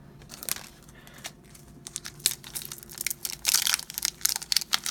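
A foil wrapper on an Upper Deck MVP hockey card pack crinkling and tearing as it is opened: scattered crackles at first, growing denser and louder over the last couple of seconds.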